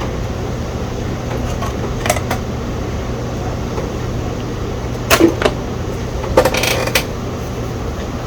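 Steady low background hum with a few sharp clicks and knocks of parts being handled: one about two seconds in, then a cluster between about five and seven seconds.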